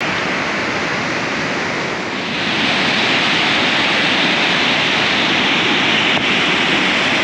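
Fast, turbulent glacier-fed mountain river rushing over rocks: a steady roar of white water, growing louder and brighter about two seconds in as the view moves onto the bridge right above the torrent.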